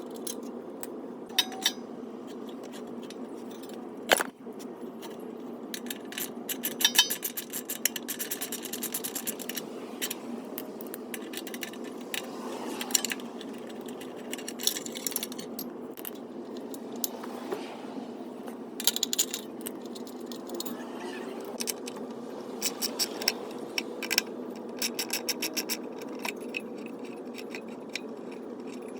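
Metal hand tools and small engine parts clicking, clinking and scraping while a small engine is being taken apart, with runs of rapid, even clicking, over a steady hum.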